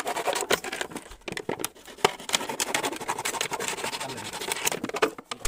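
A knife sawing through a thin plastic soft-drink bottle: a run of irregular scratching and scraping strokes, with the plastic crinkling as it is cut and gripped.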